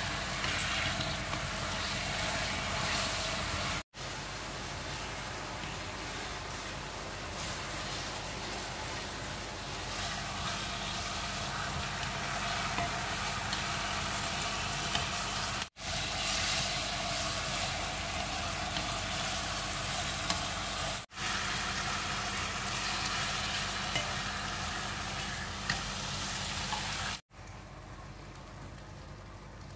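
Marinated char siu pork frying and sizzling in a nonstick pan as the pieces are turned with chopsticks. The sizzle drops out for an instant four times, and is quieter for the last couple of seconds.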